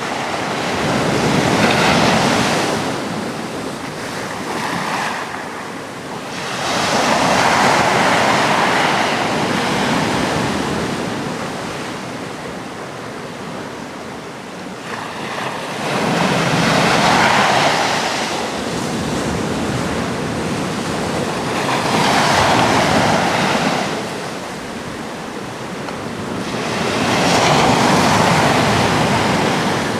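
Atlantic sea waves breaking and washing ashore, the surf swelling and fading about five times, each surge lasting several seconds.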